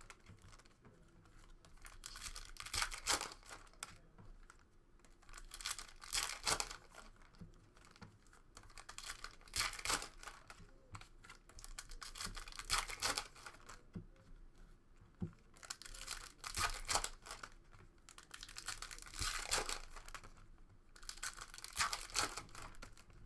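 Foil trading-card pack wrappers being torn open and crinkled by hand, in a run of crackling bursts about every three seconds.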